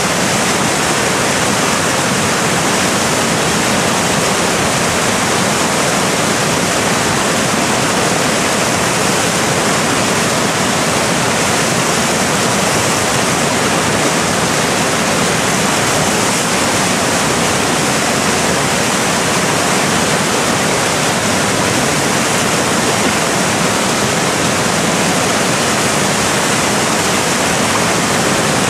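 Loud, steady rush of a big river rapid: whitewater churning and breaking over large standing waves, unchanging throughout.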